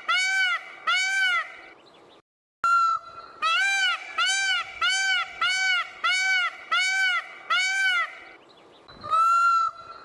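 Peacock calling in a loud series of short, arched honks, about two a second. The calls cut off abruptly about two seconds in and resume, with one longer, flatter call near the end.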